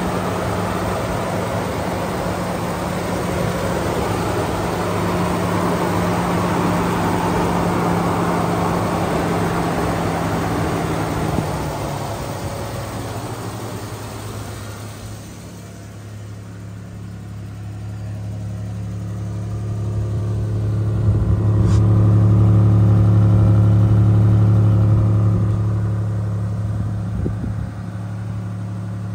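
1997 Toyota 4Runner's 3.4-litre V6 (5VZ-FE) idling steadily after a cold start. At first it is heard at the open hood, with a broad rush of intake and engine noise. About two-thirds of the way through it becomes a louder, deeper exhaust note at the tailpipe.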